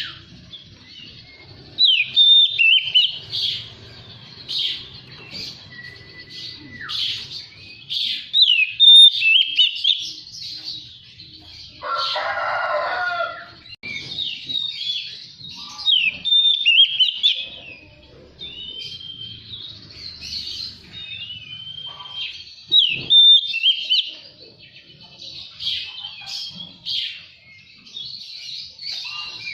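Oriental magpie-robin singing a long run of varied short whistled and chirping phrases. About twelve seconds in there is a harsher, rasping burst lasting roughly two seconds.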